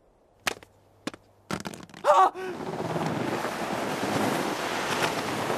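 Two sharp knocks and a brief clatter, then a short cry, then a steady rushing noise.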